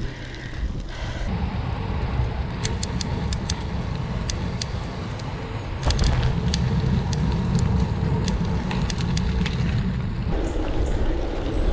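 Bicycle riding along a gravel trail: a steady low rumble of tyres and riding noise, with scattered sharp ticks and clicks, getting louder about six seconds in.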